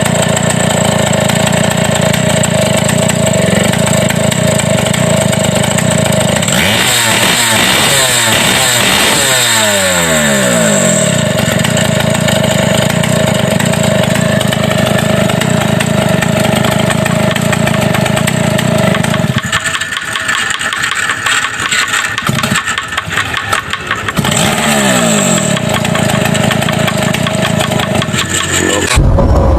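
Two-stroke chainsaw engine running fast with no guide bar or chain fitted, during a test of its strength. Its speed drops and climbs back about 7 to 10 seconds in, falls lower for a few seconds after about 20 seconds, then rises again before the sound changes abruptly at the very end.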